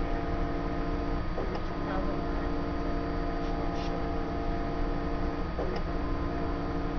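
Steady machine hum with several constant tones from a running Varian CP-3800 gas chromatograph and Saturn 2200 mass spectrometer, the autosampler standing idle.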